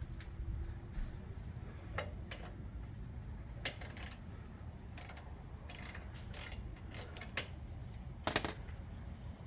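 Hand socket ratchet clicking in short, irregular strokes as a motorcycle crash-bar bolt is tightened.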